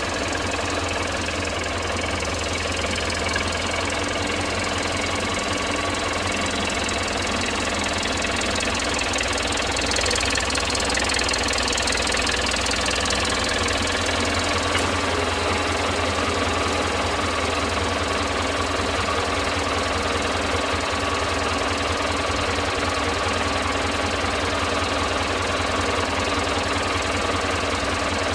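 Norwood LM29 portable band sawmill's engine running steadily, with a brief rise in hiss about ten seconds in.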